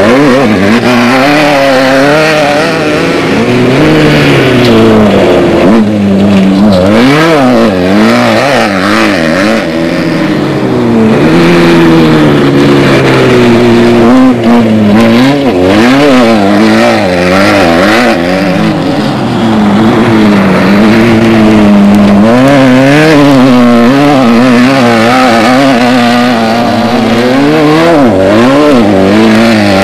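Off-road desert race vehicle engines running loud, revving up and down over and over, their pitch rising and falling every second or so.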